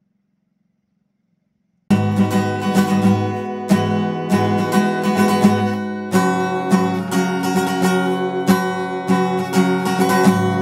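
Strummed acoustic guitar music that starts abruptly about two seconds in, after near silence.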